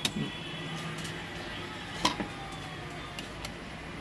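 Two sharp clicks about two seconds apart over a steady low background hum.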